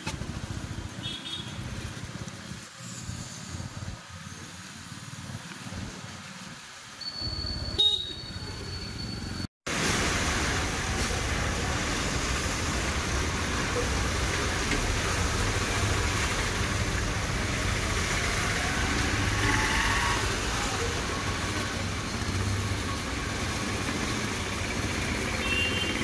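Traffic on a rain-soaked street in heavy rain: motorbikes and cars passing on the wet road, with a short high horn toot about eight seconds in. After a brief break just under ten seconds in, a louder steady hiss of rain and traffic noise carries on.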